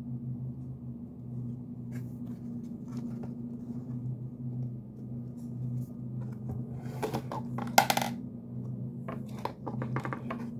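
A plastic blister card holding a metal putty tin being handled, giving scattered clicks and crackles with a loud cluster about seven to eight seconds in. A steady low hum runs underneath.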